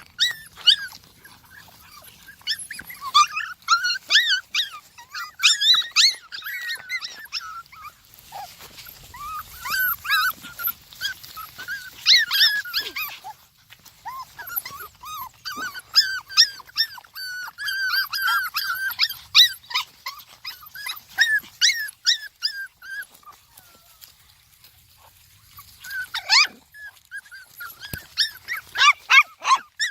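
Puppies whimpering and squeaking in short, high-pitched cries, almost without pause, with a brief lull a few seconds before the end before the cries pick up again.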